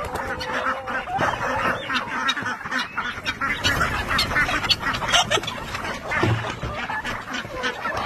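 A large flock of chickens clucking and squawking as they crowd in to be fed, with many quick wing flaps and scuffles among them.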